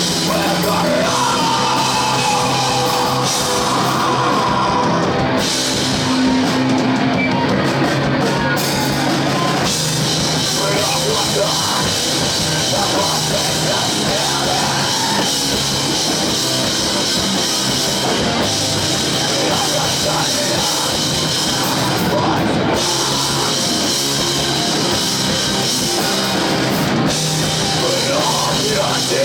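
A rock band playing live, heavy rock with a drum kit, steady and loud throughout.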